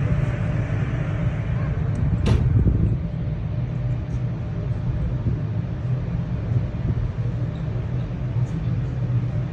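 Steady low rumble of a ship under way, with one sharp knock about two seconds in.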